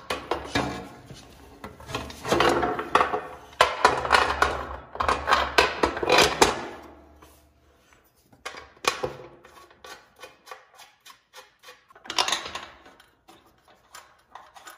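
Metal scraping and clunking as a bell housing is worked into place against an aluminium motor plate and long bolts are pushed through, for the first several seconds. After that come lighter clicks and taps of the metal parts.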